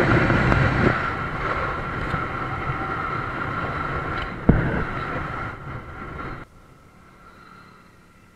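Wind rushing over an action camera's microphone on a moving motorcycle, mixed with engine and road noise, with a sharp knock about four and a half seconds in as a finger touches the camera. Near the end the sound cuts off suddenly to a much quieter steady hiss.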